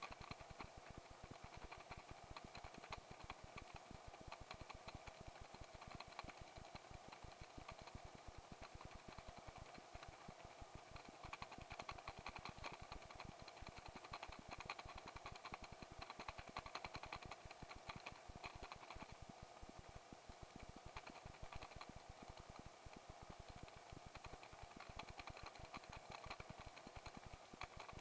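Faint helicopter noise in flight: a rapid, steady low chop from the rotor with a steady hum of several tones above it.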